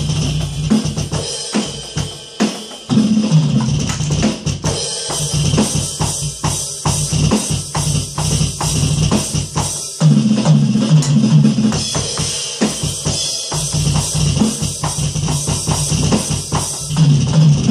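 Drumming on a Roland V-Drums electronic kit along with a song that carries a bass line, with steady kick, snare and cymbal hits. The music gets louder about three seconds in and again about ten seconds in.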